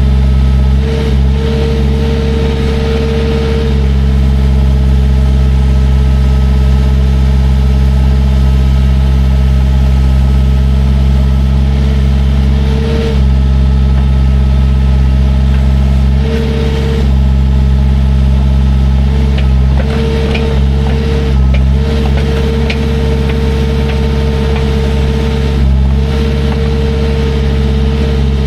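Heavy equipment diesel engine running steadily, with a higher steady tone that cuts in and out every few seconds.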